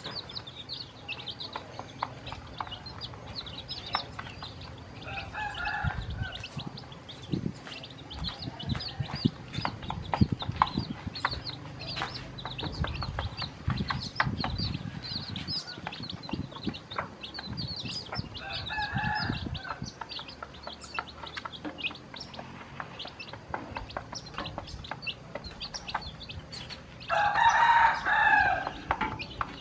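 Newly hatched chicken chicks peeping constantly in short high chirps, while a hen clucks now and then, with soft low knocks of beaks pecking at the feed plate. Near the end comes one louder, longer chicken call lasting about a second and a half.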